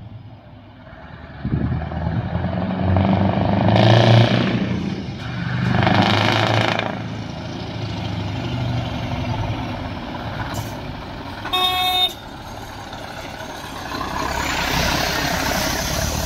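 Scania V8 truck with an open (straight) exhaust pipe running loud as it approaches, with two surges of revving about 4 and 6.5 seconds in. A short horn toot sounds about 11.5 seconds in, and the engine noise swells again as the truck passes close.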